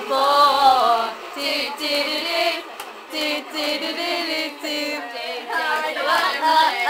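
Young female voices singing a tune, with long held notes.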